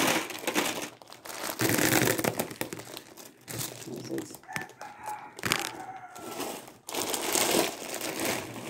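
Plastic bags of beads crinkling as they are handled, with a rooster crowing once, one drawn-out call, about halfway through.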